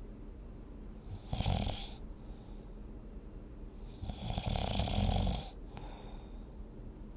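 A person snoring in their sleep: a short snore about a second and a half in, then a longer, louder snore about four seconds in, with soft breathing between them.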